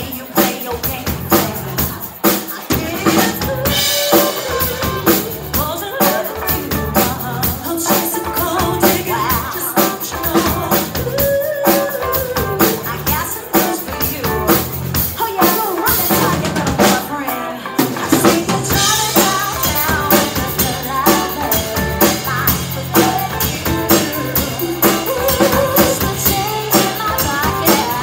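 Live band playing: a full drum kit keeps a steady beat with bass drum, snare and rimshots, under electric bass and electric guitar.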